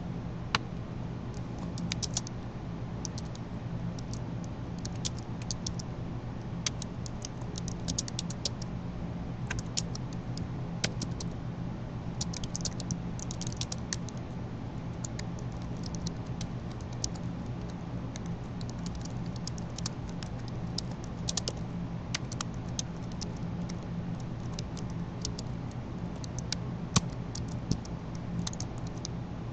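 Computer keyboard and mouse clicking, in scattered single clicks and quick bursts, over a steady low hum.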